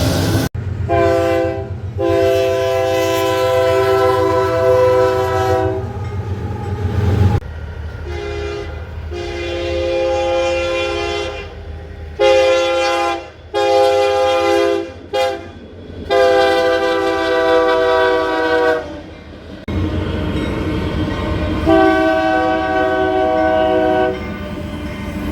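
Train horn sounding a chord of several notes in about eight or nine blasts, some brief and some held for two to four seconds, over the low rumble of a train.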